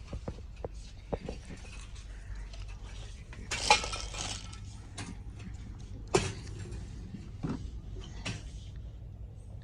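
Scattered light knocks and clicks of plastic storage boxes being handled on a shop shelf, the loudest about four and six seconds in, over a low steady hum.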